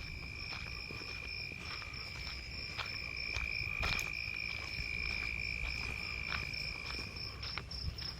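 Insects trilling steadily in two high-pitched tones, the lower one fading out near the end. Scattered sharp clicks and a low, steady rumble run underneath.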